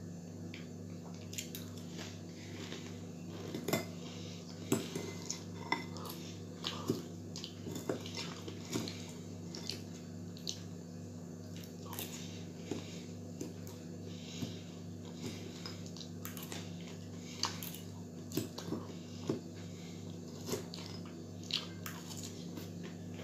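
A metal fork clinking and scraping irregularly against a ceramic bowl, with chewing, while french fries are eaten from it. A steady low hum runs underneath.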